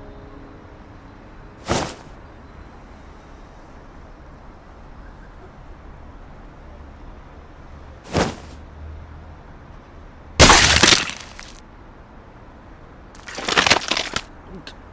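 Sudden sharp crashes over a low steady rumble: one about two seconds in, another about eight seconds in, the loudest and longest at about ten and a half seconds, then a ragged cluster near the end.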